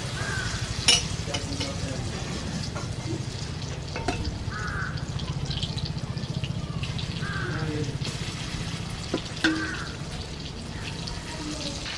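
Battered chicken pieces deep-frying in hot oil in a kadai, a steady sizzle, with a couple of sharp clinks of the utensil against the pan.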